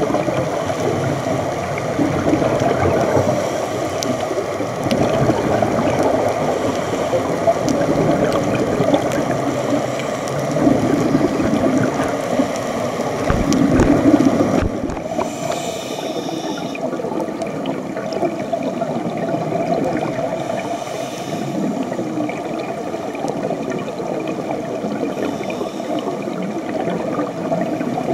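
Steady gurgling, bubbling water noise picked up underwater through a dive camera's housing during a scuba dive. It becomes a little quieter about halfway through.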